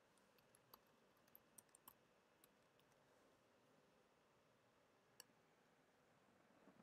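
Near silence with faint computer keyboard typing clicks, a handful in the first two and a half seconds, and one sharper click about five seconds in.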